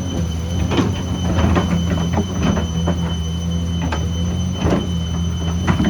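Excavator's diesel engine running steadily under load, with repeated metallic clanks and squeals of the bucket and tracks working rock and soil, one every half second to a second.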